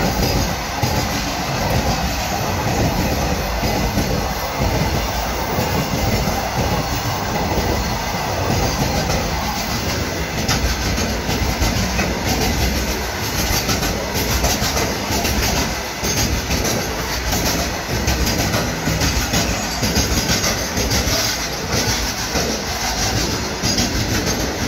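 Loaded covered freight wagons of a goods train rolling past at speed: a steady, loud rumble of steel wheels on rail with a quick, continuous clatter of wheel clicks over the rail joints.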